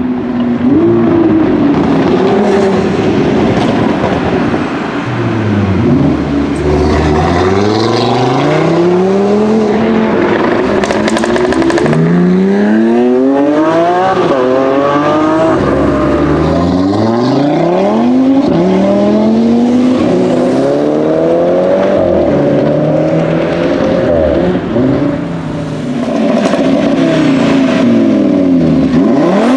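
Audi RS3 8V's turbocharged five-cylinder engine through a Milltek exhaust, revving and accelerating hard, the engine note climbing and falling again and again. Sharp crackles and pops come from the exhaust at several points.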